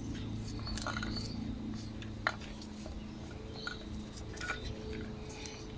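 Light clicks and taps of small parts being handled on a lawnmower's recoil pull starter. One sharper click comes a little over two seconds in, over a low steady hum that stops at about the same moment.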